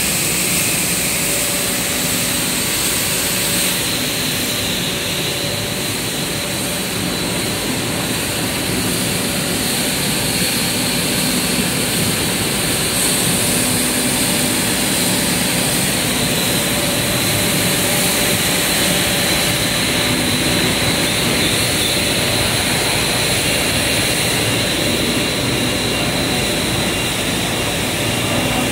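PE extrusion coating machine for paper running: a loud, steady mechanical noise from its rollers, drives and blowers, with a few high steady tones in it.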